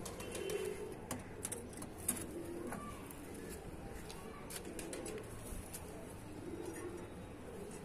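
Pigeons cooing, soft low coos repeating on and off, with scattered light clicks.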